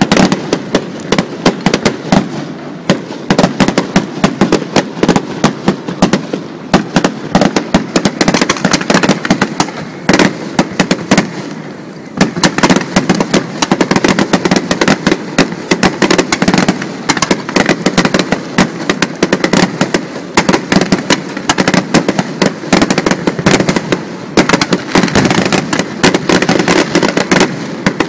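Aerial fireworks display: a rapid, continuous barrage of shell bursts and bangs, growing denser about halfway through.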